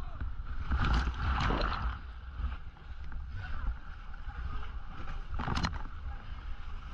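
Rescue boat's engine running at sea in rough water, with waves crashing and splashing against the hull; the water surges loudest about a second in and again late.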